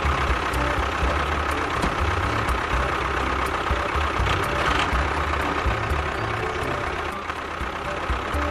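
An engine running steadily at idle, with a constant whine over a low rumble.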